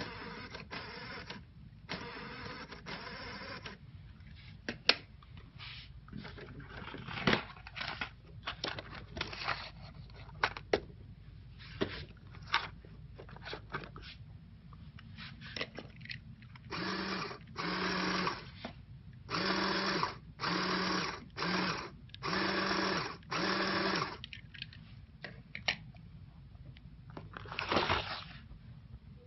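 Electric motors and plastic gearing of a remote-controlled LEGO truck whirring in short on-off bursts as it is driven, with scattered clicks between. In the second half come about six louder bursts of a second or so each, with a steady whine.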